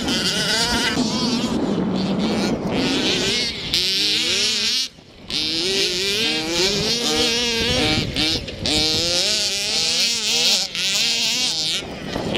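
Small two-stroke petrol engines of large-scale RC baja buggies revving up and down as they race, several at once, with a brief drop-out about five seconds in.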